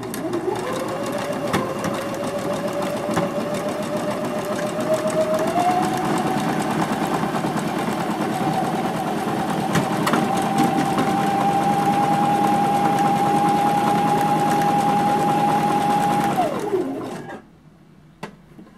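Home electric sewing machine stitching an automatic buttonhole with a one-step buttonhole foot. The motor whine and rapid needle clatter step up in speed a few times, run steady, then wind down and stop near the end as the buttonhole is finished.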